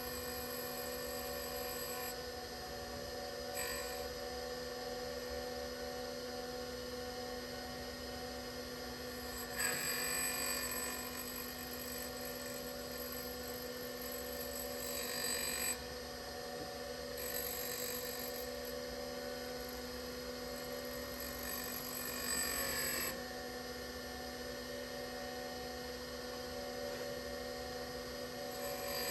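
Brown & Sharpe No. 618 Micromaster surface grinder running: a steady whine made up of several steady tones. Louder stretches of hiss come and go every few seconds.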